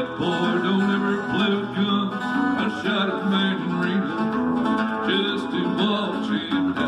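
A man singing a country song while strumming an acoustic guitar, played live through a microphone and amplifier.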